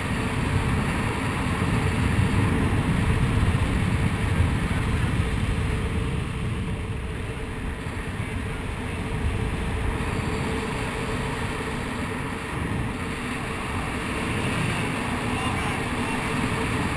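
Wind buffeting the microphone of a skydiver's helmet camera during parachute descent: an uneven, mostly low noise, loudest a few seconds in.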